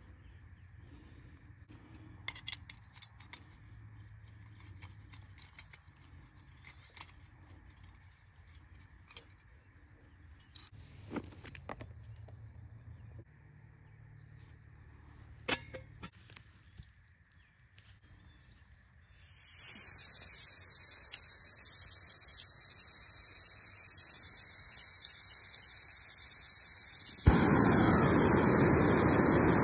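Backpacking gas-canister stove: gas starts hissing loudly from the burner about two-thirds of the way in. Near the end it lights with a pop and the flame's rushing noise joins the hiss. Before the gas comes on there are only a few faint clicks of handling.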